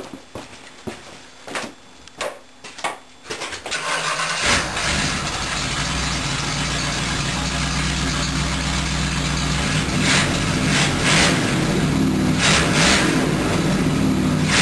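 Off-road truggy's engine starting: a few short bursts, then it catches about four seconds in and runs steadily, with several brief revs from about ten seconds in.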